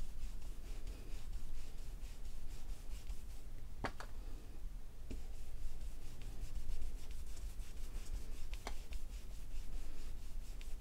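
Ink blending brush rubbing ink onto smooth card stock in quick repeated strokes, a soft steady brushing. Two light taps cut in, about four seconds in and again near nine seconds.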